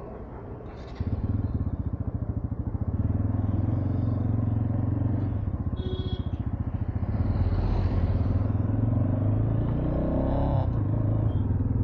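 Motorcycle engine running steadily as the bike pulls away about a second in and rides on, its note growing louder about seven seconds in.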